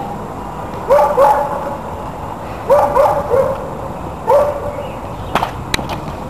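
A dog barking in short bursts of two or three barks, with two sharp clacks near the end.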